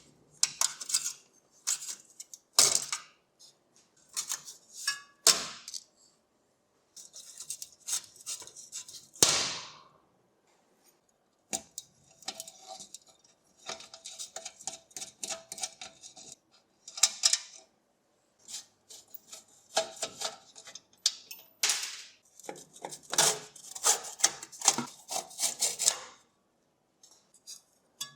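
Small metal parts and hand tools clinking, clicking and scraping against each other and a work surface as a 1960s electric fan heater is worked on. The sounds come in short clusters with a few brief silent gaps between them.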